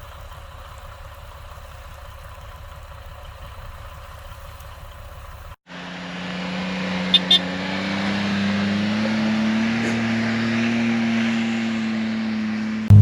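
A low steady rumble, then after a cut a motor vehicle's engine running, its pitch creeping up as it gets louder, with two quick clicks soon after it starts.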